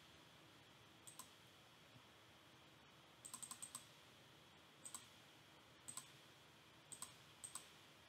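Faint clicking at a computer, single and paired clicks about once a second, with a quick run of about five clicks about three seconds in.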